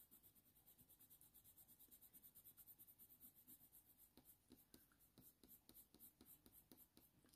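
Faint scratching of a Faber-Castell Polychromos colour pencil drawing short, quick strokes on hot-press watercolour paper, with a brief run of about three or four strokes a second.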